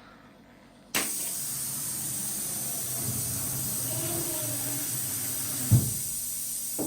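Compressed air from a pneumatic door's 32 mm cylinder running on 5 bar, starting suddenly about a second in as a steady hiss. A single short thump comes near the end.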